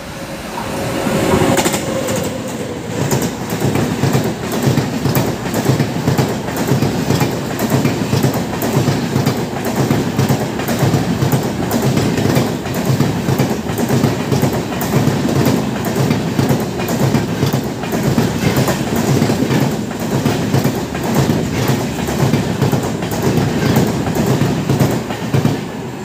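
Express passenger train passing close by at speed: the locomotive goes by, then a long rake of coaches with the wheels clattering over rail joints in a steady, rapid rhythm.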